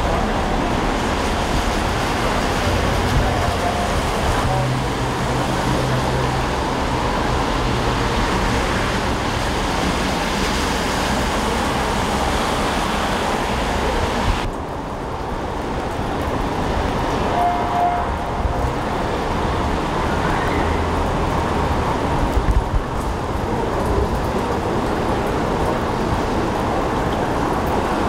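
Steady city street noise: traffic with a hiss from the wet road, and a low hum from running vehicles for a few seconds near the start. About halfway through, the background cuts to a duller, slightly quieter version of the same noise.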